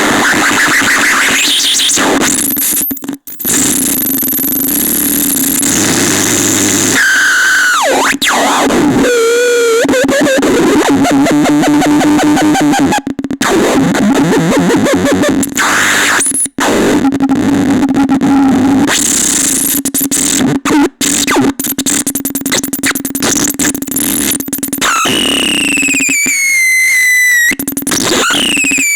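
Harsh, glitchy electronic noise from the Catastrophone noise synthesizer: dense hiss and buzz over a steady low drone, broken by abrupt cuts, with warbling tones about ten seconds in and repeated falling whistles near the end.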